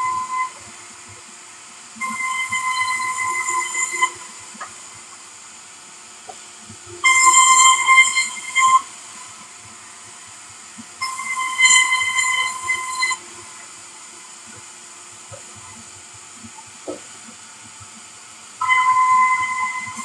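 Sawmill saw blade cutting through timber in bursts: a loud, even high-pitched whine while the wood is fed through, three cuts of about two seconds each and a fourth starting near the end, with the saw running more quietly in between.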